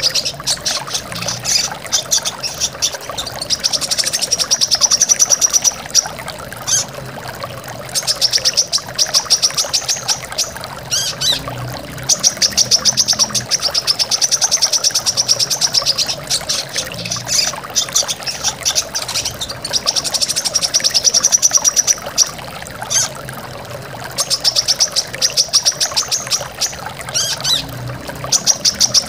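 Brown-throated sunbird (kolibri kelapa) singing fast, high trills in phrases of a second or two, one after another with short gaps, over the steady rush of a waterfall.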